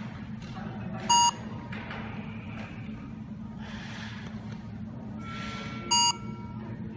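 Handheld Android PDA barcode scanner giving two short electronic beeps about five seconds apart, the scanner's confirmation beep for a successful read of a code on a phone screen.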